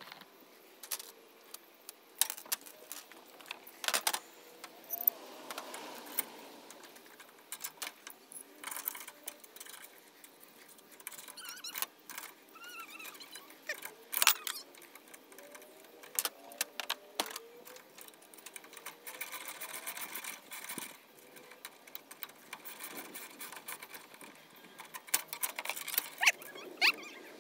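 Hand wrenches and bolt hardware clinking and clicking on steel as an awning mounting bracket is fastened to a metal roof basket: irregular, sharp metallic taps and rattles.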